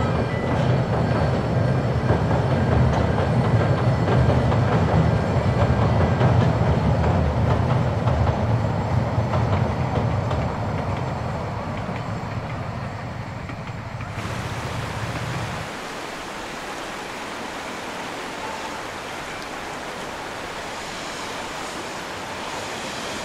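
Narrow-gauge steam train running across a bridge, its wheels and coaches making a low rumble that fades away over the first dozen seconds. About fourteen seconds in, it changes suddenly to the steady rush of a river over rocks.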